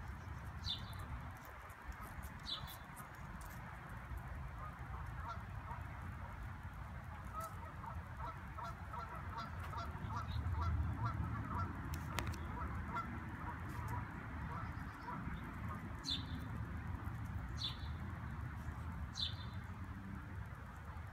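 Birds calling: a long run of quick repeated calls through the middle, and a few short high chirps near the start and again near the end, over a steady low rumble.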